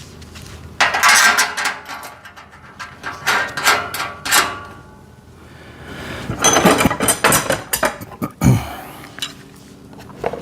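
Metal rack parts and hardware clinking and rattling in several short bursts as they are handled and fitted during assembly, with a dull thump about eight seconds in.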